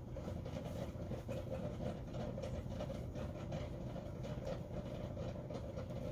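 Steady low background hum, with faint soft rustles and ticks from yarn and an aluminium crochet hook being worked through stitches.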